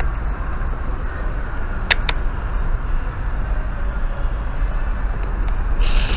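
Steady low rumble. Two sharp clicks close together come about two seconds in, and a short hiss near the end.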